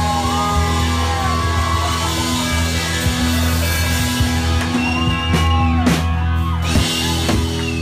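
Live rock band playing: sustained bass and guitar notes with a voice singing over them, and a few sharp drum hits between about five and seven seconds in.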